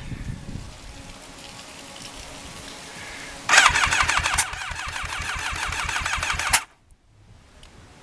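Electric starter cranking the rebuilt Yamaha Thunderace's inline-four engine, which does not catch, on a battery that is going flat. A quieter low rhythmic pulsing comes first, then louder cranking with a whine that dips with each stroke from about three and a half seconds in, which cuts off suddenly about three seconds later.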